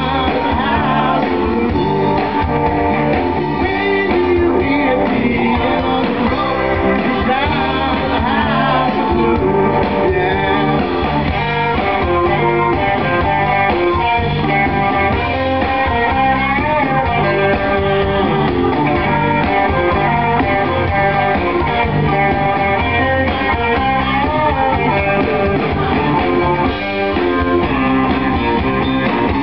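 Live rock and roll band playing, with an electric guitar out front and a steady bass and beat underneath.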